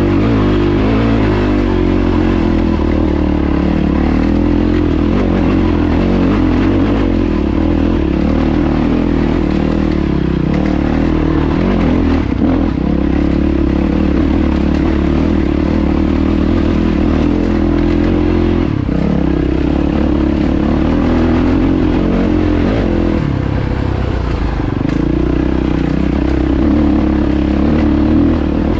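Yamaha WR450F dirt bike's single-cylinder four-stroke engine running under way on a rocky trail, its pitch rising and falling with the throttle and easing briefly about two-thirds of the way through.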